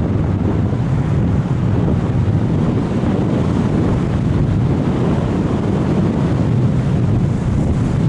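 Wind rushing over the microphone of an action camera mounted on a radio-controlled sailplane in gliding flight: a loud, steady, deep buffeting rush of airflow.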